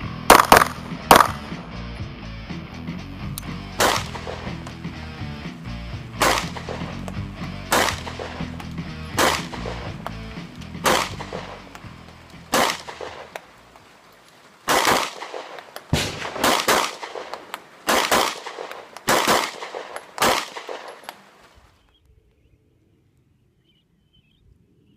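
Sig Sauer M11-A1 9mm pistol firing more than a dozen single shots, spaced a second or two apart, with some quick pairs in the second half. Background music plays under the first half and fades out. The shooting stops about three-quarters of the way through.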